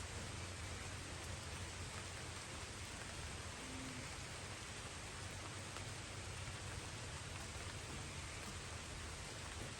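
Light rain falling steadily, an even hiss of drops with no single loud strike.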